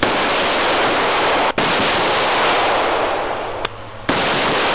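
Heavy sustained automatic gunfire, a dense loud crackle of rapid shots, broken by a short gap about a second and a half in and another near the end.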